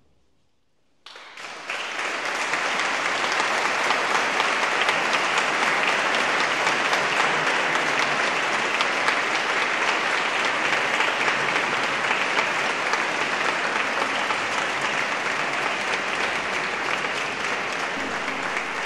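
Audience applause breaking out suddenly about a second in after a brief silence, then continuing steadily and easing slightly near the end.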